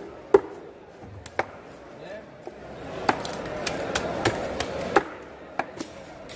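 Knife and cleaver blades striking a wooden chopping block as a large fish is cut up: a series of sharp, irregular knocks, with the loudest near the start and about five seconds in.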